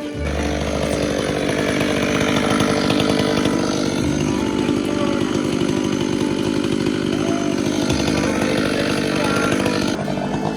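Chainsaw running steadily at high revs while cutting timber, easing off briefly near the end.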